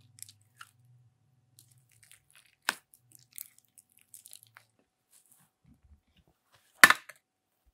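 Slime with crunchy sprinkles and clay being peeled up and squeezed: scattered small crackles and sticky pops, with a sharp crack a little under three seconds in and a louder crunchy pop near the end.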